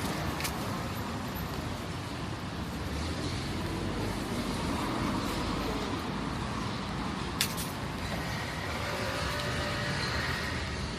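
City street traffic: cars and buses passing steadily, with two sharp clicks, one about half a second in and one about seven seconds in.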